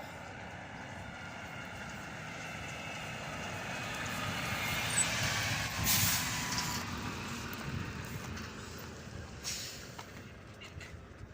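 A motor vehicle passing by: its sound swells, peaks about halfway through with its pitch dropping as it goes by, then fades away.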